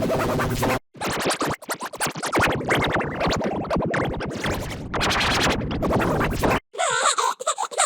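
Short electronic intro jingle run through audio effects filters: a dense, choppy, scratch-like passage that drops out briefly about a second in. Near the end it cuts out again and gives way to warbling tones that bend up and down.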